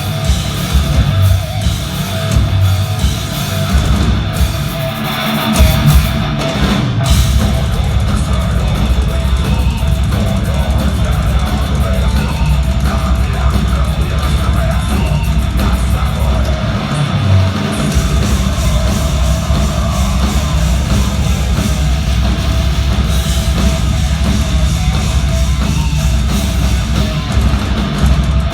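Heavy metal band playing live: distorted electric guitars over a drum kit, with no vocals. About seven seconds in the drumming turns fast and dense, with a brief break about halfway through.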